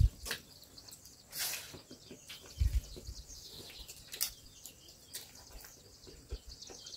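Quiet sounds of people eating rice by hand off a banana leaf: scattered soft clicks and small knocks, with a low thump about two and a half seconds in.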